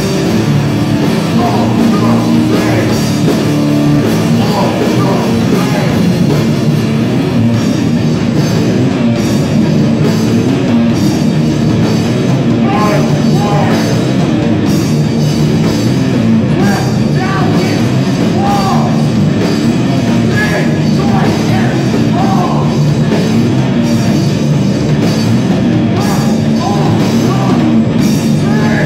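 Hardcore punk band playing live: distorted electric guitars and a drum kit, loud and continuous, with vocals into a microphone.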